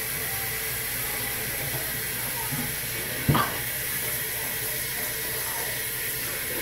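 A tap running steadily into a sink, an even hiss of water, with one short thump about three seconds in.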